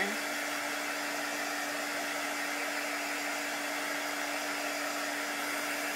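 Small handheld heat tool blowing steadily, an even rush of air with a constant hum, held over a chalk-paste sign to dry it.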